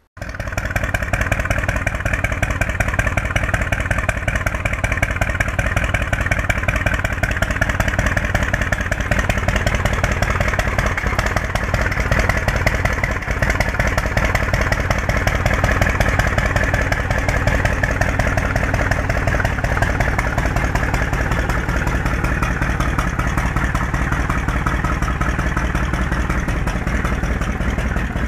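Yamaha XV1600's air-cooled V-twin engine, fitted with Highway Hawk slip-on exhausts, running at a steady idle.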